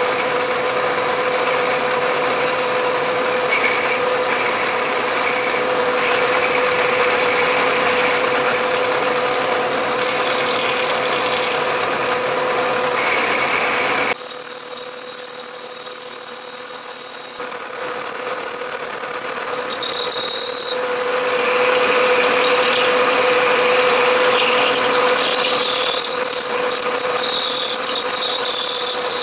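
Milling machine running a 3/8-inch end mill through a cast aluminium vise jaw on a finishing pass, a steady whine over the noise of the cut. About halfway, the sound abruptly thins to a high hiss with a wavering high tone for several seconds, then the steady milling whine returns.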